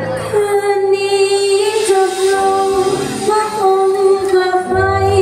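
A woman singing long, held notes as a live song opens, with the band's bass coming in near the end.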